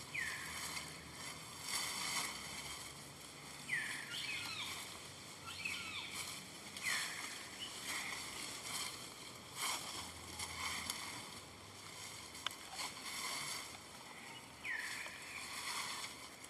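A young monkey gives about five short, high squeaking calls, each dropping in pitch, spread through the stretch, over soft rustling.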